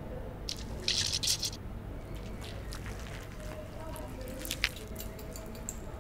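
Plastic spray bottle spritzing liquid onto cupped hands with a short hiss about a second in, then wet hands rubbing together with soft squishy sounds and a sharp click near the end.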